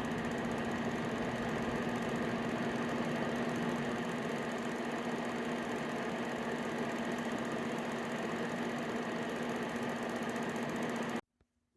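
Kismile ceramic space heater's fan running steadily with a low hum, cutting off abruptly near the end.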